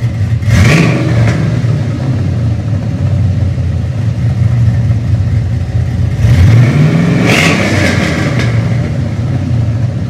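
Cammed 6.0 L LS V8 running at idle through its exhaust, revved twice: a quick blip about half a second in and a longer rev from about six seconds in that climbs and drops back to idle.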